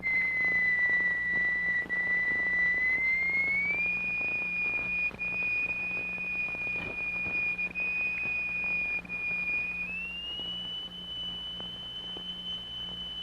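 Steady, high-pitched pure electronic tone used to vibrate a plate in a cymatics experiment. It glides up to a higher note about four seconds in and again about ten seconds in. A low steady hum and faint crackle from an old film soundtrack run underneath.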